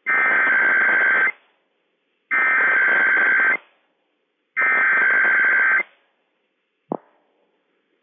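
Emergency Alert System SAME header tones received over NOAA Weather Radio. There are three identical bursts of buzzy two-tone digital data, each about a second and a quarter long with roughly a second's pause between them, encoding a Required Weekly Test. A short click follows near the end.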